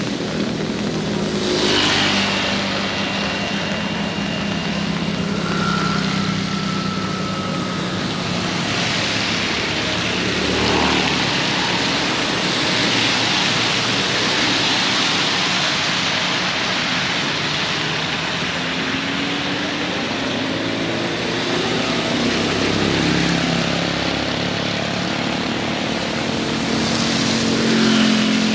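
Steady hiss of heavy rain, with the engines of several motor vehicles passing one after another on a wet road; the last pass, near the end, is the loudest.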